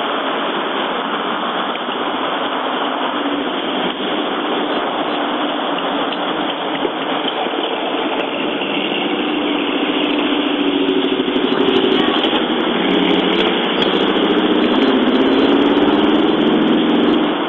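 Car engine running while stopped, heard from the car along with a steady hiss. A low engine hum grows louder in the second half.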